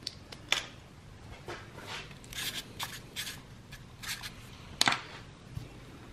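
Handling noises: light scrapes and clicks as engine pistons and connecting rods are moved about on a sheet of cardboard, with one sharper click a little before the end as a part is set down.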